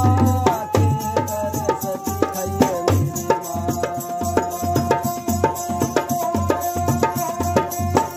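Live folk music: a hand-played dholak barrel drum keeps a steady rhythm under a bowed folk fiddle playing a melody. The melody slides between notes at first, then holds one long note from about three seconds in.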